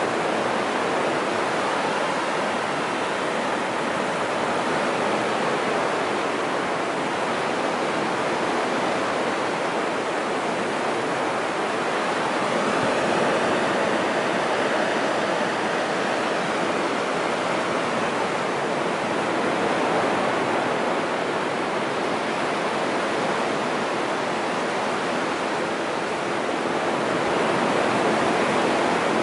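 Surf breaking and washing up a sandy beach: a steady rushing hiss that swells slightly every several seconds as waves come in.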